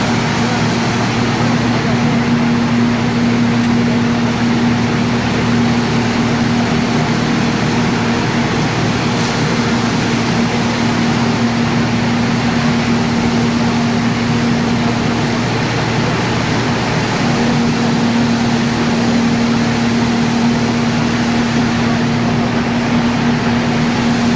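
Electric-motor-driven rotary straw crusher running steadily as it shreds straw: a loud, even mechanical drone with a steady low hum through it.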